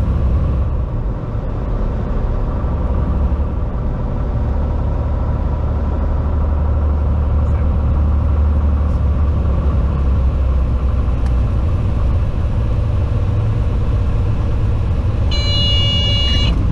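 Cessna 182T's Lycoming IO-540 six-cylinder engine and propeller running with a steady low rumble through the final approach and touchdown. Near the end, around the moment the wheels meet the runway, a brief high-pitched tone with several overtones sounds for about a second.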